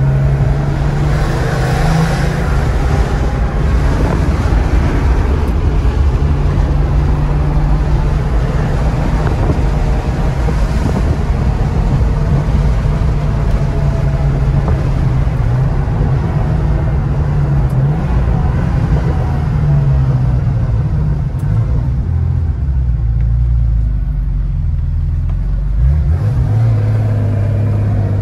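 Air-cooled 3.3-litre turbocharged flat-six of a 1990 Porsche 911 Carrera 4 (964), heard from inside the cabin while driving. The engine note rises and falls in pitch with the throttle, settles lower and quieter for a few seconds near the end, then picks up again.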